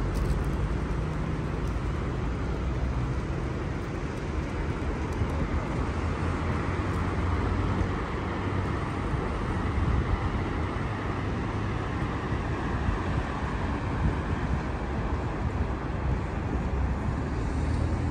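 Road traffic on a town street: vehicles running past, a steady low rumble of engines and tyres with no single event standing out.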